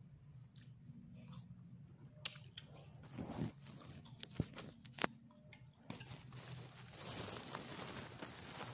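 Quiet chewing of a soft fried pastry with a mung bean filling, with scattered small clicks. A steady hiss comes in about six seconds in.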